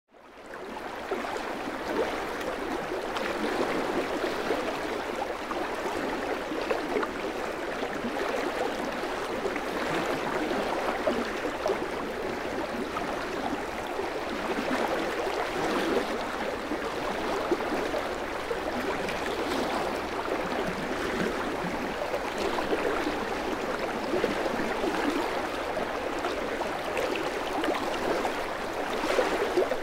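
Fast, swollen forest creek running high with spring snowmelt, a steady rush of water over rocks that fades in over the first second.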